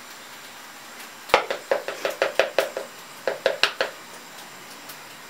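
Glass spice jar of curry powder being shaken and tapped over a bowl: a quick, irregular run of about a dozen light clinks and knocks lasting two and a half seconds, starting about a second in.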